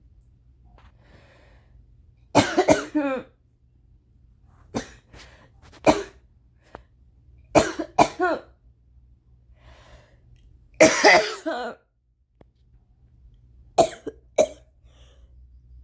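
A woman coughing violently in repeated fits, some single hacks and some runs of two or three coughs, with short quiet pauses between; she puts the coughing down to her allergies.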